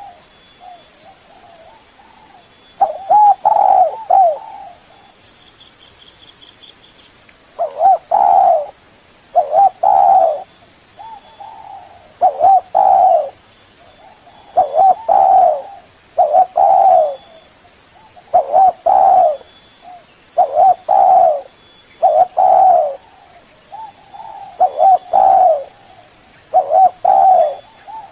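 Spotted dove cooing over and over: short multi-note coo phrases, one about every two seconds, after a pause of a few seconds near the start. This is the tekukur call used as a lure to draw a rival dove.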